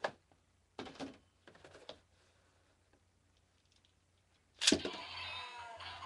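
Light plastic clicks of handling, then a sharp clack about 4.7 seconds in as a remote-controlled Beyblade spinning top lands in a plastic stadium, followed by a high whirring rattle as it spins.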